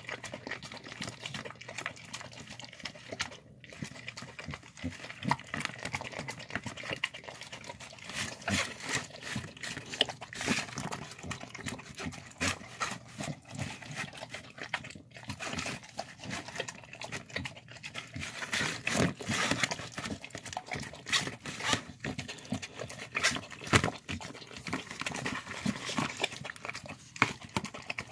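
A dog eating a wet mash of meat, rice and vegetables from a plastic tub: a dense, irregular run of wet lapping, slurping and chewing noises.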